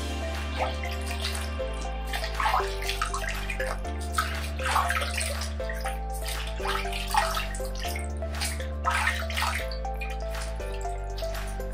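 Water splashed from cupped hands onto a face, irregular wet splashes and trickles as the cleanser is rinsed off. Background music with slow sustained chords plays underneath.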